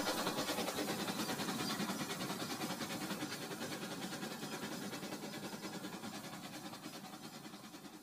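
Battery-powered toy train running on plastic track after a crash, a fast rhythmic clatter that fades steadily.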